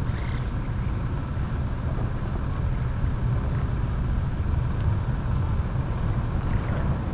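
Steady low rumble of distant highway traffic carrying across open water.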